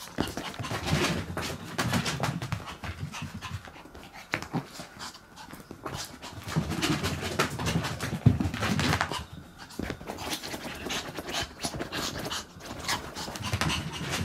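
A Chihuahua running about fast and panting, with many quick taps and scrapes in between.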